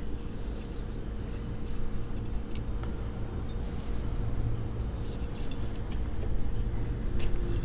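Soft, irregular scraping and light clinks from hand handling, over a steady low hum.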